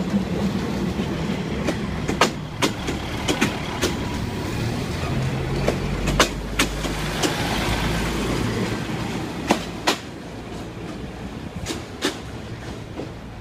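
Passenger coaches of a departing train rolling past close by: a low rumble with wheels clicking over the rail joints. It drops away about ten seconds in as the end of the train goes by.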